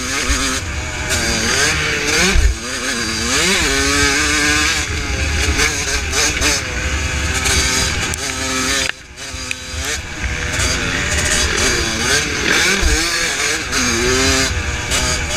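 1982 Suzuki RM125X's two-stroke single-cylinder engine revving up and down under riding, its pitch rising and falling with the throttle and gear changes, with a short drop as the throttle is shut about nine seconds in.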